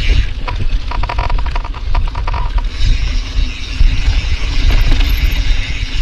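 Mountain bike running fast on a dirt trail, with a steady low rumble of wind and tyres. About a second in, the DT Swiss 350 ratchet rear hub buzzes as a rapid run of clicks for about a second and a half while the rider coasts.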